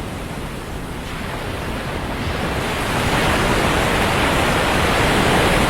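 Atlantic surf on a sandy beach: the wash of the waves swells about halfway through as a wave breaks and stays loud. Wind on the microphone rumbles underneath.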